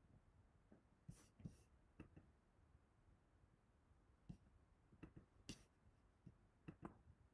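Near silence broken by several faint, separate clicks of a computer mouse as cards are played in a bridge program.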